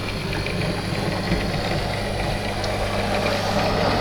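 Model GWR 64xx pannier tank locomotive running along the track: a steady electric motor hum with wheel-on-rail rumble, growing louder near the end.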